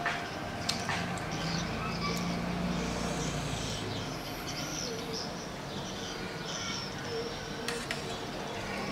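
A spoon and fork clink a few times against a steel tray while stirring noodles in broth, twice near the start and again near the end. Birds chirp in the background, and a low rumble from a passing vehicle runs through roughly the first four seconds.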